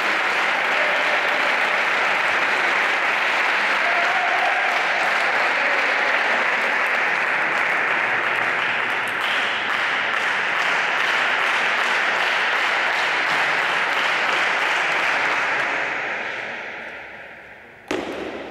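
Spectators applauding steadily after a point, the clapping dying away about sixteen seconds in. Near the end, one sharp click of the table tennis ball.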